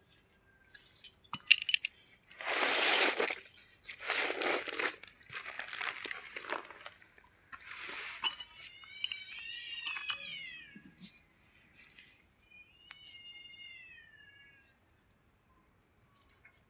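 A cat meowing twice, the first call in the middle of the stretch and the second, fainter one a few seconds later. Before them come four short bursts of hissy noise and a few light clinks.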